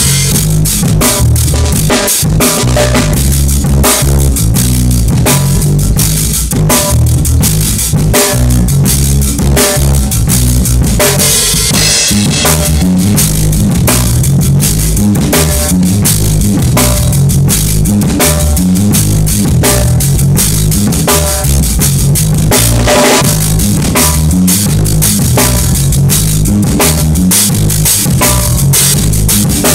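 Drum kit played with a band: a dense run of kick, snare and cymbal hits over a pitched bass line, loud throughout.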